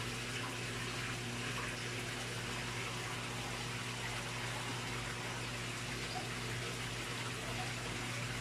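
Water running steadily into a fish pond, an even splashing flow, with a low steady hum underneath.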